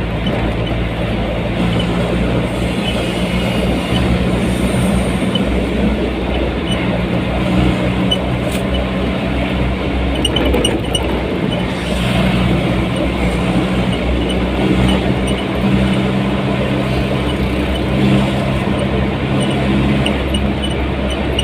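A road vehicle's engine and tyre noise droning steadily while driving, with a low hum that stays even throughout.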